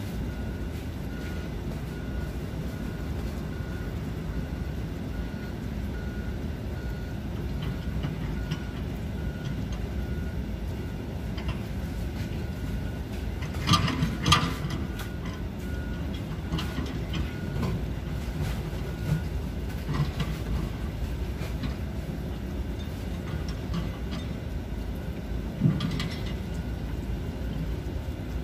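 Low steady rumble of distant heavy machinery with a faint beep repeating at an even pace for much of the first two-thirds. Two sharp knocks come about halfway through and another near the end.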